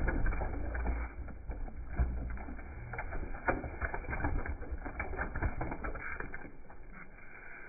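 Slices of bottle gourd tipped into a pot of hot water, splashing and plopping in a quick run of small splashes that thins out near the end.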